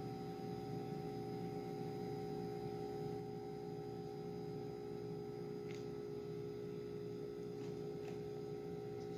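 A faint, steady hum made of several steady tones held together, with a couple of faint ticks in the second half.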